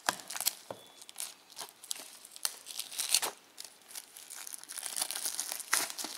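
Clear plastic shrink-wrap being torn open and peeled off a Blu-ray box set, crinkling in quick irregular bursts that grow busier toward the end.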